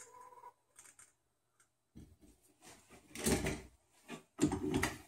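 Metal hand plastisol injector being drawn full from a cup of liquid plastisol and handled: a faint squeak near the start, then three short bouts of scraping and clattering in the second half.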